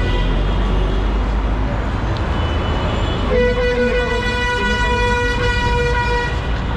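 Steady low traffic rumble, then a vehicle horn sounds about halfway in as one long, flat blast of about three seconds.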